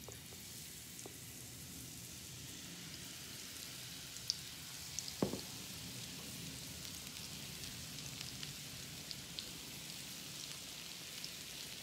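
Funnel cake batter frying in hot oil in a small pan: a steady sizzle with scattered crackles. There is a sharper pop about four seconds in and another about five seconds in.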